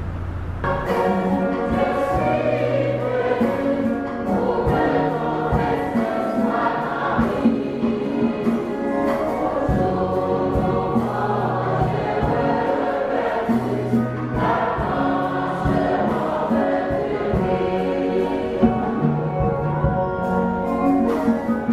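Church choir singing with instrumental accompaniment: sustained voices over a bass line, with a regular beat. The music comes in just under a second in.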